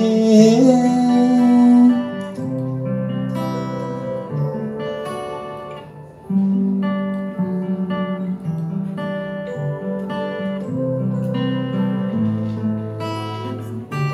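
Acoustic guitar and keyboard playing a slow instrumental ending to a ballad, with held chords and sustained low keyboard notes; the singer's last held note fades out in the first two seconds. The music grows softer toward the middle, then swells back up.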